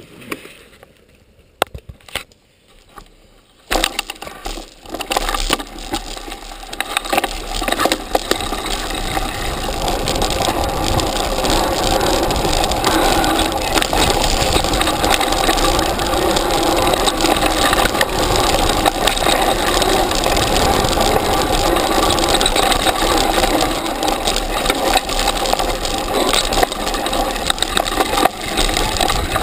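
Mountain bike riding down a dirt and grass forest trail, heard from a camera mounted on the bike: tyre noise and the bike rattling over bumps. It starts quiet with a few clicks, then about four seconds in the noise rises and stays loud as the bike gathers speed downhill.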